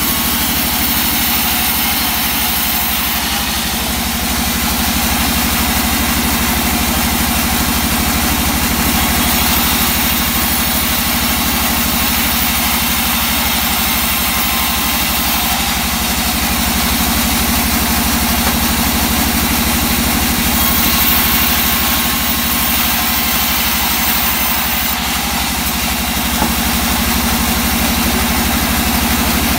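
Large vertical bandsaw running steadily with a low motor hum, its blade ripping lengthwise through a thick board of old teak.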